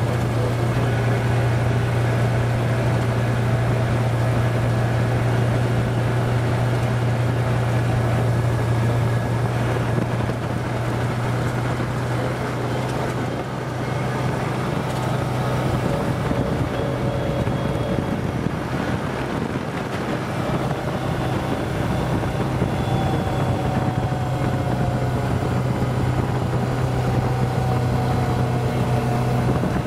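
Side-by-side ATV's engine running steadily as it drives along, a constant low hum whose pitch shifts slightly with speed.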